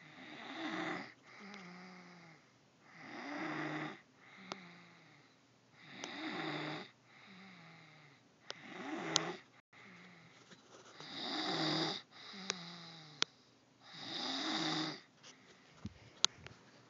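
A person snoring in sleep: six loud snores, one about every two and a half to three seconds, with a quieter, lower-pitched sound on the breath between them. The snoring stops about fifteen seconds in, and a few small clicks follow.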